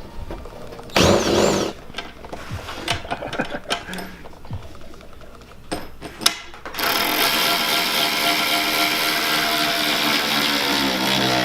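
Clicks and knocks of parts being handled. Then, about seven seconds in, a power tool's motor runs at a steady speed for about five seconds and slows as it winds down near the end.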